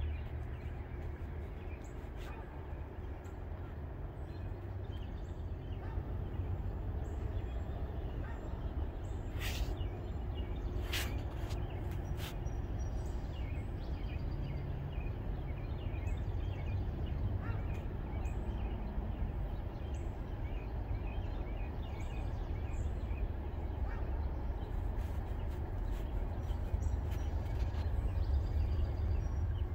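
Birds chirping and calling over a steady low rumble, with a few sharp clicks around ten seconds in.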